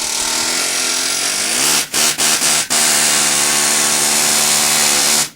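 Electric drill running under load, drilling a shallow divot into a concrete mixer's gear ring for a rivet. Its pitch climbs over the first couple of seconds and drops out briefly about three times, then it runs steadily and cuts off suddenly near the end.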